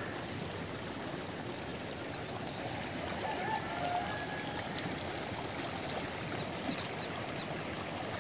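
Steady rushing noise with the sound of running water, like a stream, with a few faint short chirps about three to four seconds in.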